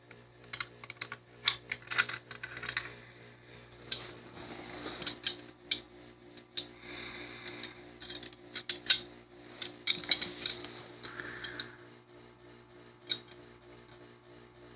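Parts of an all-steel PHP MV pistol being handled during field stripping: a run of irregular sharp metallic clicks and clinks with some brief scraping, the loudest about two seconds in and again around nine seconds in.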